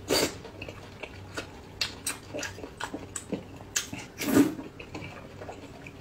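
A person slurping noodles from a bowl of broth: a loud wet slurp right at the start and another about four seconds in, with short wet smacks and mouth clicks of chewing in between.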